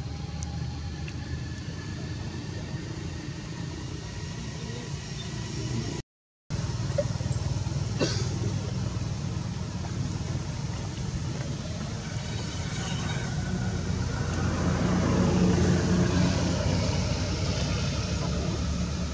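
Steady low outdoor background rumble that swells louder for a few seconds in the second half. It cuts out completely for about half a second around six seconds in, and a single sharp click comes about eight seconds in.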